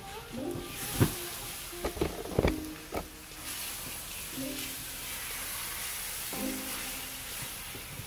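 Eggs, spinach and peppers sizzling in a hot pan as a silicone spatula stirs and turns them, with a few sharp knocks in the first three seconds; the sizzle grows stronger about halfway through. Faint background music underneath.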